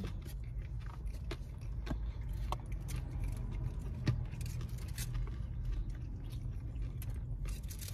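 Chewing of crunchy fried tripa (beef intestine) tacos: many faint, short crunching clicks, over a steady low rumble in a car cabin.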